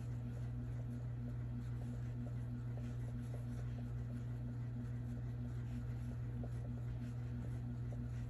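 Steady low hum with a faint tone pulsing about three times a second above it. Faint soft ticks and rustles come from a crochet hook and yarn being worked through double crochet stitches.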